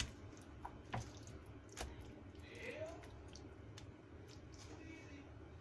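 Hands squishing and kneading raw pork collar slices in a wet soy-and-garlic marinade in a stainless steel pan: faint wet squelches, with a few light clicks in the first couple of seconds.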